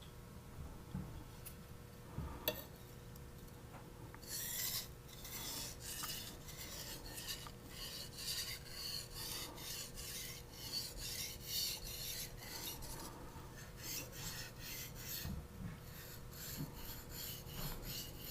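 Steel knife blade stroked back and forth on a Japanese natural finishing stone, a steady rasping scrape of about two strokes a second that begins about four seconds in after a faint click.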